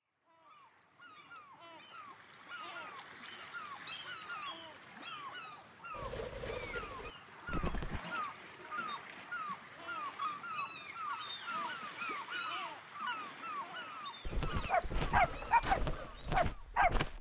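A flock of seagulls calling, many short falling cries overlapping as the sound fades in, with two brief rushes of noise about six and seven and a half seconds in. Near the end a run of loud, sharp sounds rises over the calls.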